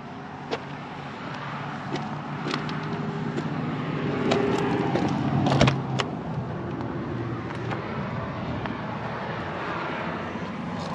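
A vehicle driving with its engine running steadily, growing a little louder around the middle, with scattered knocks and rattles from the body, the strongest about halfway through.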